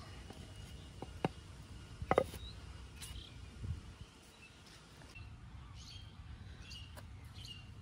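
Birds chirping now and then over a low steady background rumble, the short calls repeating through the second half. A few sharp clicks or knocks stand out, the loudest about two seconds in.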